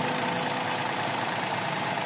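Suzuki Celerio's three-cylinder engine idling steadily. The mechanic describes the idle as shifting up and down, a symptom of the misfire he is chasing.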